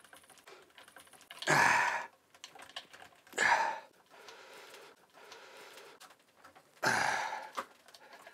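A person breathing out hard three times, each a short loud huff of air, with faint small clicks of the puzzle being handled in between.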